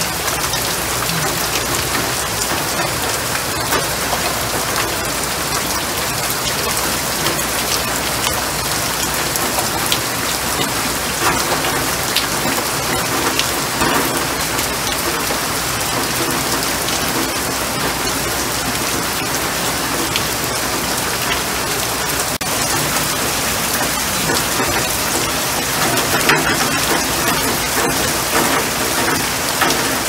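Heavy rain falling into standing water on the ground: a dense, steady hiss of drops splashing.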